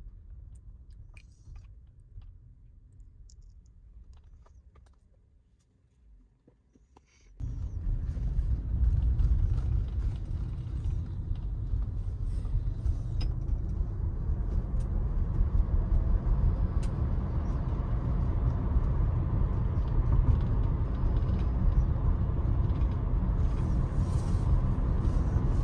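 Inside a Tesla electric car's cabin: a quiet low hum with a few faint clicks at first. About seven seconds in, steady road and tyre rumble with wind noise cuts in suddenly as the car travels at highway speed.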